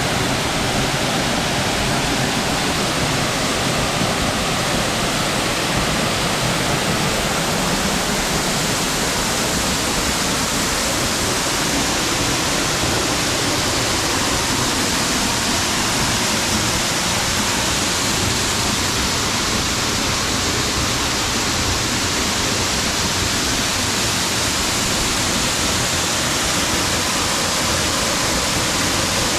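Upper Latourell Falls, a waterfall: a loud, steady rush of falling water.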